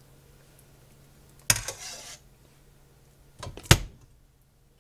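Metal slotted spoon clanking against a stainless stockpot as beef chunks are scooped out for canning. Two knocks about two seconds apart, the first with a short scrape after it and the second the louder, over a faint steady hum.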